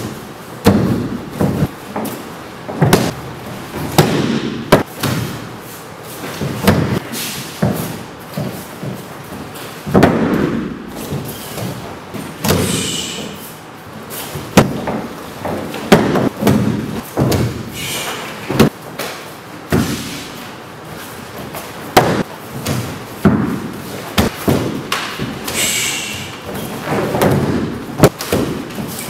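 Bodies and bare feet thudding and slapping onto padded training mats during martial-arts throws and takedowns: many sharp impacts at irregular intervals.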